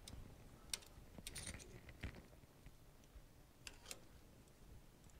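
A handful of faint, scattered clicks and light metallic taps from hands handling parts at the chuck of a stopped metal lathe; no motor is running.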